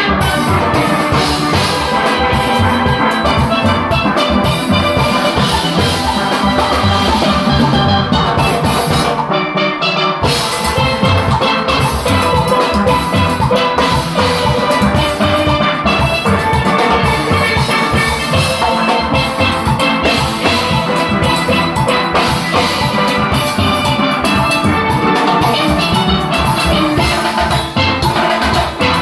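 A steelband playing live: chromed lead pans ringing over blue-barrel lower pans, with a drum kit keeping a steady beat. The bass and drums drop out for about a second roughly a third of the way through, then come back in.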